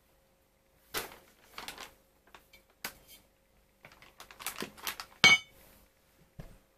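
Handling noise from a metal riser handlebar and a clear plastic bag: crinkles and light clicks over several seconds, then the bar is laid down with a brief metallic clink and ring about five seconds in.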